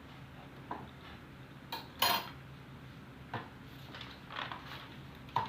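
Cutlery clinking against a plate, about six separate clinks, the loudest about two seconds in, over a faint steady low hum.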